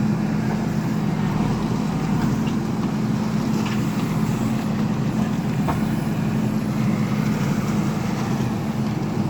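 Diesel engine of a JCB earthmoving machine running steadily under work, with a constant low hum.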